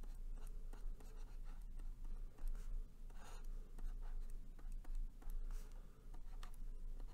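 Stylus scratching on a tablet in short, quick strokes while equations are handwritten, over a faint steady low hum.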